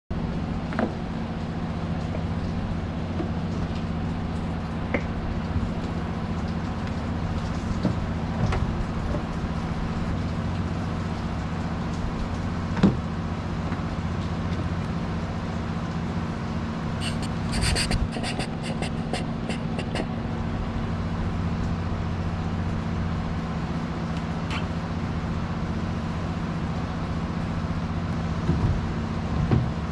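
A motor or engine running steadily with a low hum, with scattered single clicks and knocks and a short run of rapid metallic clicking a little past the middle.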